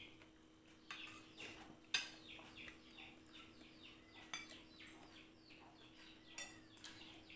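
A bird chirping faintly and over and over, short falling notes about two a second, with a few sharp clinks of spoons against dishes, the loudest just before two seconds in.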